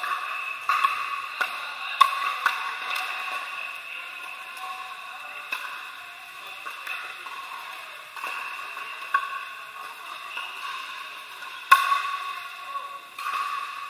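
Pickleball paddles striking a hard plastic ball: sharp pops at irregular intervals during rallies, the loudest about two seconds in and near the end, over a steady background noise in a large indoor court hall.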